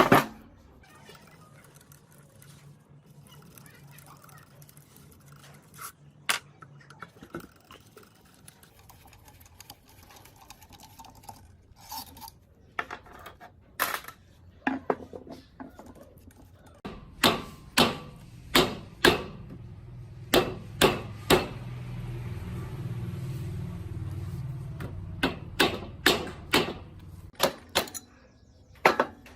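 Metal parts being handled: scattered sharp knocks and clinks, coming in quick runs through the second half. A low hum rises and fades under them in the second half.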